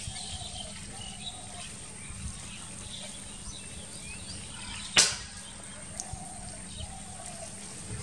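Open-field ambience with small birds chirping, broken about five seconds in by one sharp crack and a fainter click a second later.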